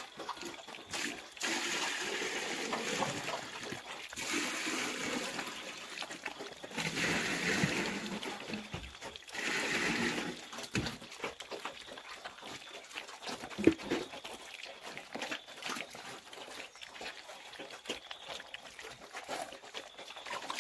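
A group of black piglets eating at a trough: a steady run of small clicks and smacks, with several louder noisy stretches of a second or two and one sharp knock about two-thirds of the way through.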